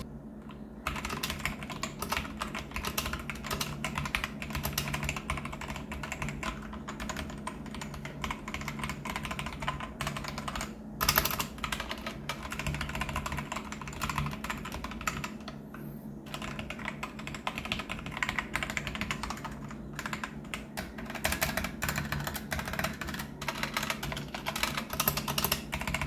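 Fast, continuous typing on a Ziyoulang K3 98-key mechanical keyboard with red linear switches: a dense run of key clacks, with one louder burst about eleven seconds in. The long keys' stabilizers hit the plastic and the cheap keycaps make the switches sound like dampened blue switches, with the space bar and Enter the loudest.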